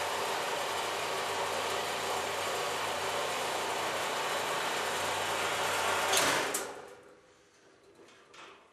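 Horizontal cutoff bandsaw running steadily, its blade cutting through a metal part clamped in the vise. About six seconds in there is a short louder noise, then the sound dies away quickly, leaving a few faint clicks.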